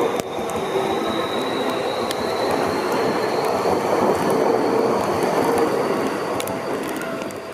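Electric commuter train of the Seibu Ikebukuro Line passing close by at a level crossing: loud, steady wheel-on-rail rumble, with a thin high whine that rises slowly in pitch through the pass.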